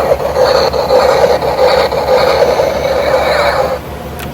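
X-wing starfighter engine sound effect: a steady rushing drone that cuts off sharply near the end.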